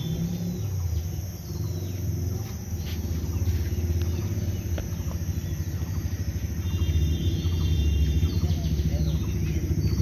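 A vehicle engine idling close by: a steady low rumble with a fast, even pulse. Faint high chirps come through about seven seconds in.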